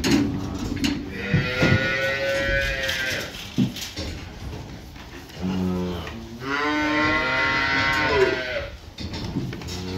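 Holstein cattle mooing: two long moos, the second lower at first and then rising, with another starting near the end. A few short knocks are heard between them.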